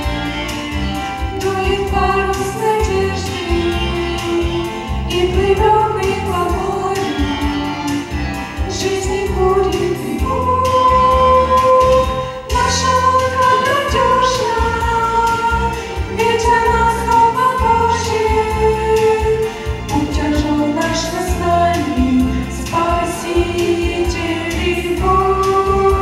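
A group of teenage girls singing a Christian song together into microphones, in melodic sung phrases over an instrumental accompaniment with a steady bass line.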